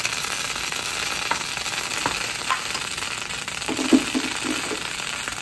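Fish-shaped konjac pieces sizzling on a hot steel teppanyaki griddle: a steady hiss with a few small ticks and pops. A short low murmur sounds a little before four seconds in.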